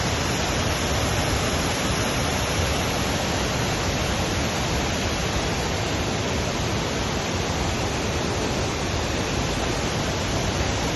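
Waterfall, a steady, loud rush of falling water.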